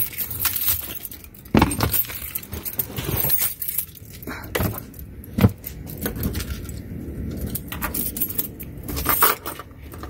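Plastic cargo-area trim of a 2012 Toyota Prius being handled and the floor cover lifted: irregular clicks and knocks, sharpest about one and a half seconds and five and a half seconds in, with a set of car keys jangling.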